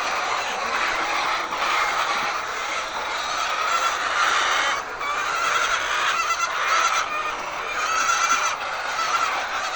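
A large flock of hens calling all at once in a continuous, dense chorus of overlapping squawks and clucks.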